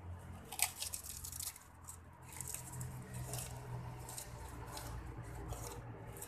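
A person chewing food close to the microphone, eating by hand: irregular crackly crunching noises in a short run about half a second in, then again from about two to six seconds in.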